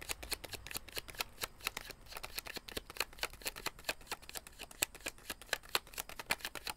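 A tarot deck shuffled overhand from one hand to the other: a dense, irregular run of quick card clicks and flicks that stops near the end.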